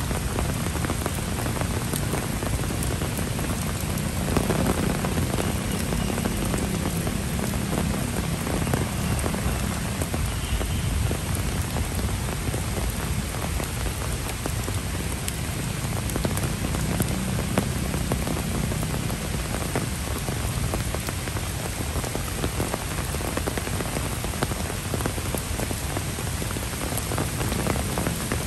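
Heavy rain falling steadily on trees, grass and a wet brick path, with many close drops ticking.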